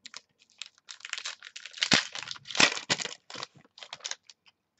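A stack of football trading cards being flipped and shuffled in the hands: a fast run of papery clicks and sliding scrapes, loudest about two seconds in and again around two and a half seconds.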